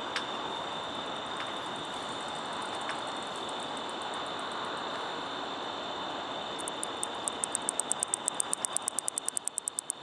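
Katydid (Microcentrum californicum, an angle-wing katydid) calling with its clicking song. A few faint high ticks come first; about seven seconds in, a loud run of sharp high ticks starts slowly and speeds up to about ten a second.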